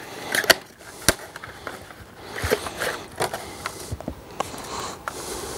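A white plastic fly-line spool and its packaging being handled on a table: irregular sharp clicks and taps with light rustling between them.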